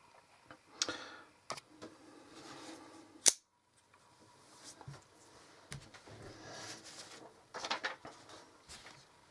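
Kershaw Cryo folding knife being handled: small clicks and rustling, then about three seconds in a single sharp snap as the SpeedSafe assisted-opening blade flips out and locks on its frame lock. Faint handling sounds follow as the open knife is set down.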